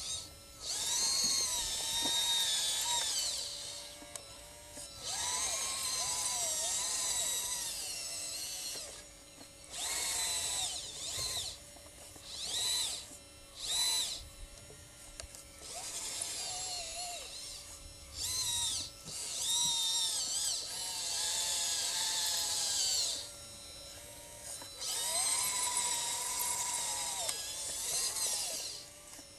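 Electric motors and hydraulic pump of a radio-controlled scale Liebherr LR 632 tracked loader whining in repeated bursts as the model drives and works its bucket, the pitch rising and falling with load, stopping briefly between moves.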